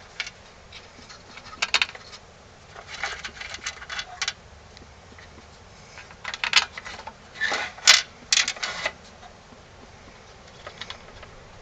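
Small metal screws clicking and rattling as they are handled and set into a mower's plastic carburetor, in short scattered clusters of light clicks.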